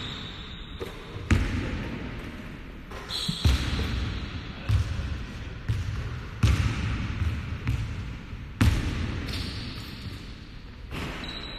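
Basketballs bouncing on a gym floor: single thuds at irregular intervals of a second or two, each echoing through the hall.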